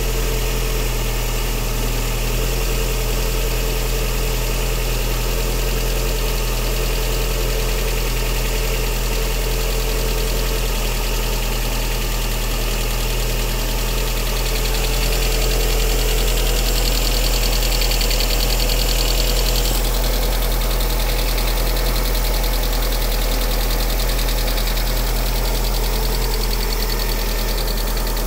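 Lada Priora engine idling steadily with a rapid knock, heard after the car has stood parked for a long time; the owner links the knock to the hydraulic lifters or the piston group. It runs a little louder for a few seconds past the middle.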